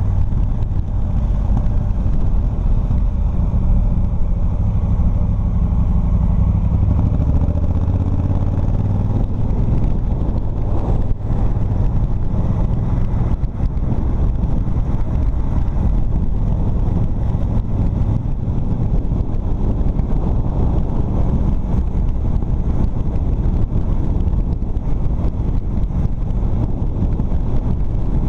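Motorcycle engine running at a steady cruising pace, heard from on board the bike, its low, even note mixed with wind and road rush that grows rougher about a third of the way in.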